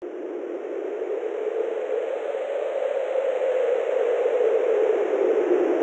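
A steady rushing noise without any tone that gradually swells louder, its pitch drifting slowly up and back down.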